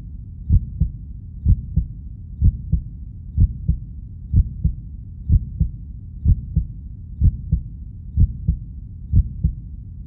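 Heartbeat sound effect: deep double thumps, lub-dub, repeating about once a second over a low steady rumble.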